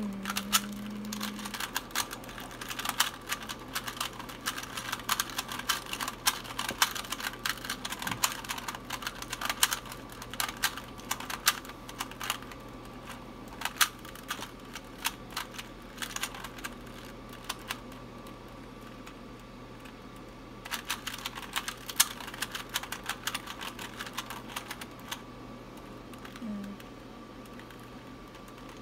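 Rubik's cube being turned rapidly by hand during a speed solve: quick runs of plastic clicks as the layers snap round, with a few short pauses.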